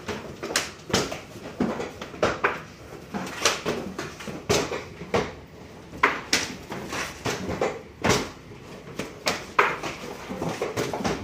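Manual screen printing: wooden screen frames lifted and set back down on the printing tables, giving an irregular run of sharp knocks and clatter, about one or two a second.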